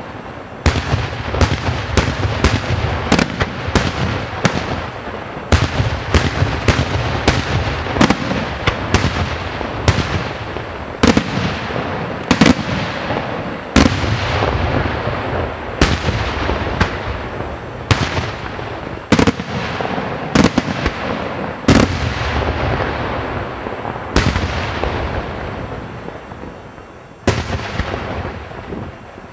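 Aerial firework shells bursting in a rapid, irregular string of sharp bangs, often two or three a second, with a continuous rumble between them. Near the end the bangs thin out and the rumble fades, broken by one more loud bang.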